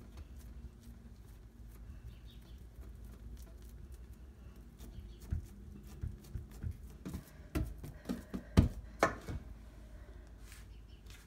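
Hands pressing and patting a ball of stiff dough flat on a countertop: a run of soft taps and knocks in the second half, the loudest a little past the middle, over a low steady hum.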